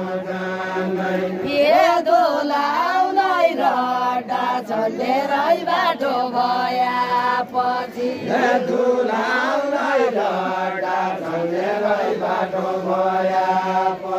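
Group of voices singing a Deuda folk song verse in a chanted, unison style, the melody gliding up and down over a steady low held note.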